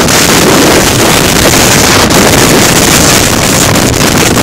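Hurricane-force bora wind blasting the microphone: a loud, steady rushing roar with no letup.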